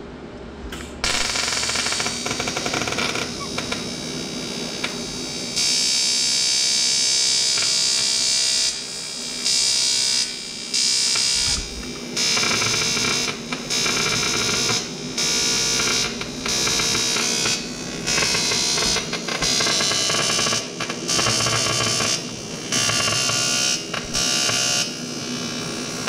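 Eastwood TIG 200 welding arc: a steady buzzing hiss that strikes about a second in. From about nine seconds it switches between high and low current roughly every second or so, the home-made pulse setting worked through the torch trigger.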